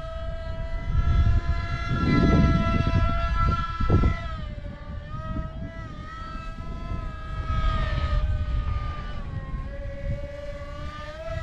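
Brushless electric motor and propeller of an RC foam model jet in flight, a high whine whose pitch drifts and dips with throttle. Wind rumbles on the microphone, loudest about two to four seconds in.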